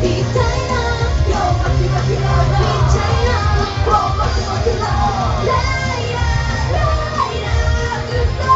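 Female idol group singing live into handheld microphones over a loud backing track with heavy bass, played through a small venue's PA speakers.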